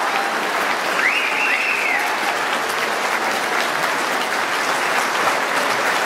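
Theatre audience applauding steadily, with a brief high call rising and falling about a second in.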